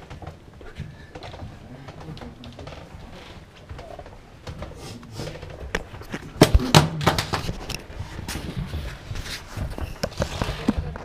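Scattered clicks, knocks and shuffling of people moving about in a small room, over a low murmur of voices. The knocks grow busier about halfway through, with a cluster of loud sharp knocks a little past the middle.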